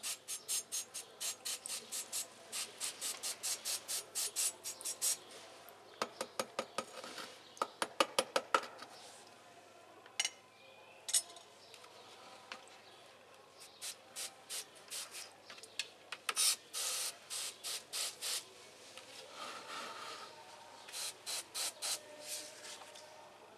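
Rapid rhythmic scrubbing strokes, about four a second, in several runs with pauses between them, and a cluster of sharper clicks near the middle.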